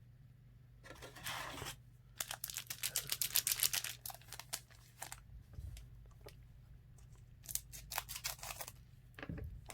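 Crinkling and tearing of a foil trading-card pack wrapper being opened by hand, in two clusters of quick crackles, the denser one about two to four seconds in and another near the end.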